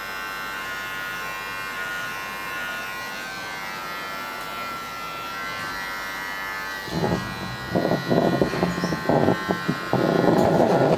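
Electric hair clippers running with a steady buzz as they shave the back and sides of a head down to zero. A louder, uneven noise joins the buzz about seven seconds in.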